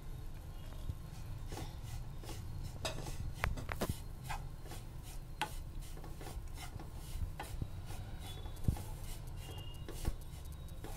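A spatula stirring and scraping a dry mix of semolina and chopped vegetables in a non-stick wok, irregular scrapes with light knocks against the pan. The semolina is being dry-roasted with the vegetables before water goes in.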